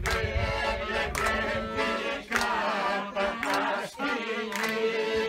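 Accordion and clarinet playing a Greek folk dance tune, with a sharp beat about once a second and a long held note in the second half.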